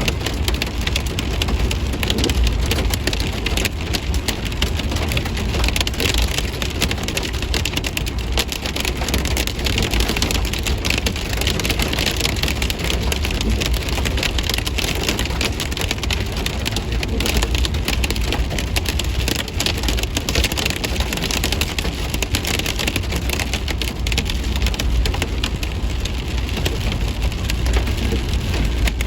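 Hail falling and pelting hard surfaces: a dense, steady clatter of countless small hits, with a steady low rumble underneath.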